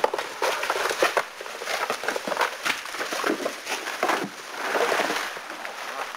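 Irregular rustling and crackling of dry leaves and twigs, like footsteps moving quickly through dry brush, with a longer, fuller rustle about four and a half seconds in.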